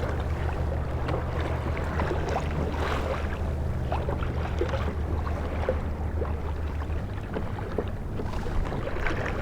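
Choppy water slapping and splashing against a kayak hull, with the steady low hum of an electric trolling motor that cuts off about seven seconds in.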